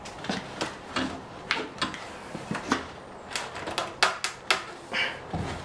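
ABS plastic creaking and cracking under load, a string of sharp, irregular clicks, as a solvent-cemented ABS flange joint is levered with a pipe in a strength test.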